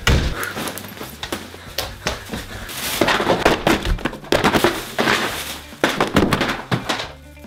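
Paperback exam-prep workbooks dropped one after another onto a pile on a carpeted floor: a run of slaps and thuds, about two a second through the second half. A heavy thump comes right at the start.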